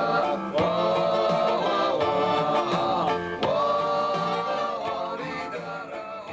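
A song: singing over instrumental backing, in long held notes that slide between pitches, growing quieter toward the end.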